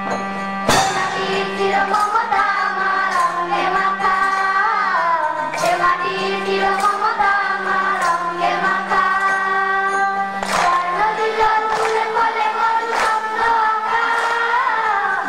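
Schoolchildren singing together, accompanied by a school band: a held low note runs underneath the melody, and there are drum strikes every few seconds.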